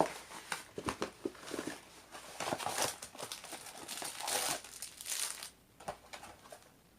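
Packaging being handled and crinkling: irregular rustles and crinkles that die down about five and a half seconds in.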